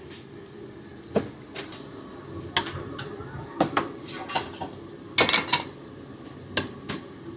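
Dishes and utensils clinking: scattered sharp clacks, with a quick cluster about five seconds in, over a steady low hubbub of a busy room.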